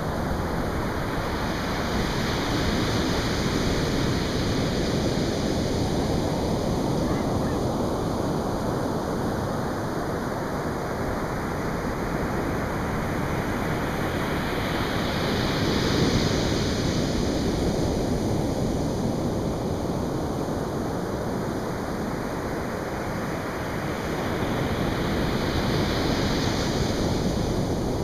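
Atlantic Ocean surf breaking on a beach: a continuous rushing wash of water that swells as waves break, about three seconds in, midway and again near the end.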